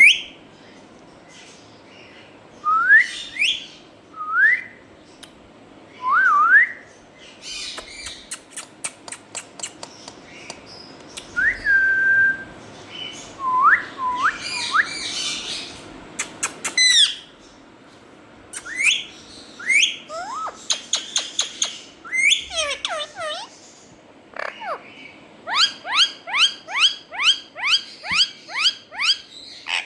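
Rose-ringed (Indian ringneck) parakeet calling with repeated short screeches that sweep up in pitch. A run of sharp clicks comes about eight seconds in, and a fast string of calls, about three a second, fills the last few seconds.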